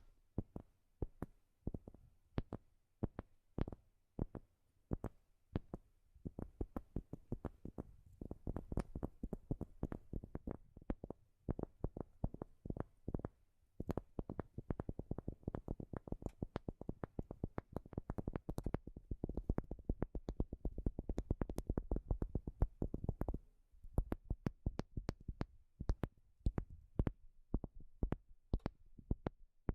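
Tapping on a wooden surface: slow, separate taps at first, then quick runs of rapid taps through the middle, easing back to slower, spaced taps near the end.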